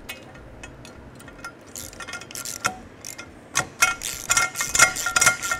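Hand socket ratchet clicking in quick runs as it tightens a nylon locking nut down the coupler's latch bolt. For the first couple of seconds there are only faint metal clinks from the nut and keeper plate being handled.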